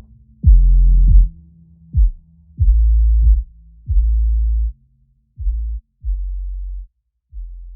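Background music: a run of deep, booming bass notes about a second apart, each dropping in pitch as it starts, growing quieter and stopping near the end.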